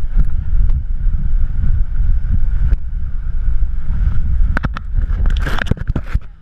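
Heavy wind rumble on an action camera's microphone while a tube is towed at speed over the sea, with the hiss of spray. Near the end comes a quick run of sharp splashes and knocks as water hits the camera.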